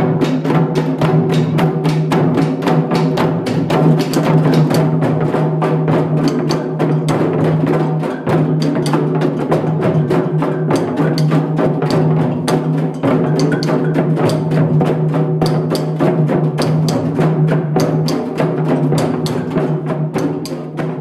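Group hand drumming: dense, fast strikes from many drums over a steady held low note, beginning to fade out near the end.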